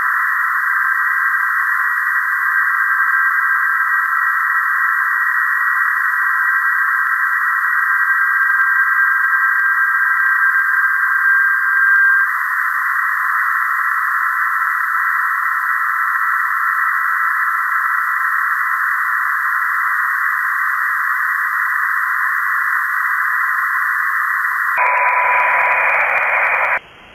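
HF SDR receiver audio on the 20-metre PSK31 frequency: filtered band of hiss with thin steady PSK31 signal tones running through it. About 25 seconds in the audio passband widens and a lower tone comes in, then the sound cuts off suddenly near the end.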